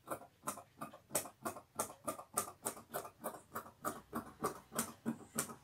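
Large steel tailor's shears cutting through cloth along a marked line: a steady series of crisp snips, about four a second.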